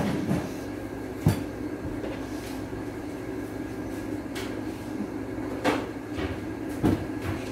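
Household knocks over a steady low hum: a sharp thump about a second in, then a refrigerator door being opened and shut, with two knocks near the end.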